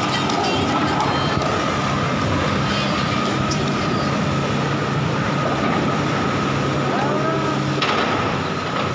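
Komatsu hydraulic excavator's diesel engine running steadily under load as it works its boom and bucket, with a steady high whine over it.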